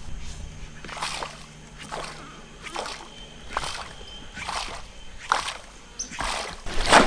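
A topwater fishing lure being jerked across the river surface, splashing about once a second, a little louder near the end.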